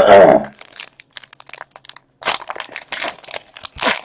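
A foil trading-card pack wrapper crinkling and rustling in the hands as it is torn open, with louder crackles about two seconds in and near the end. A short loud voice sound comes first.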